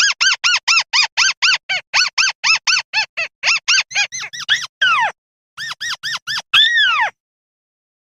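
Buff-banded rail calling: a rapid run of squeaky notes, about five a second, each rising and falling in pitch. It ends in a few longer squeals that fall in pitch, with a short break about five seconds in, and stops about seven seconds in.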